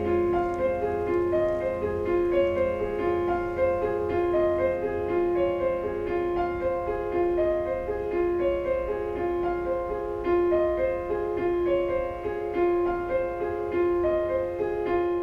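Solo piano playing a steady, repeating figure of notes. A low hum sits under the first few seconds.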